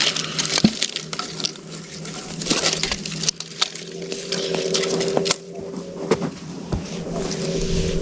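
Irregular crackling and snapping of wood, with a steady low hum joining about four seconds in.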